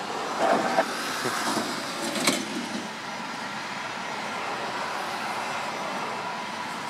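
Airbus A319-112's CFM56-5B turbofan engines at climb power as the airliner climbs away after takeoff: a steady rushing jet noise with a faint steady whine. A short sharp click a little over two seconds in.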